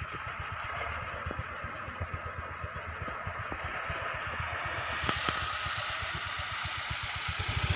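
Tractor engine running steadily some way off, with a low, even firing rhythm.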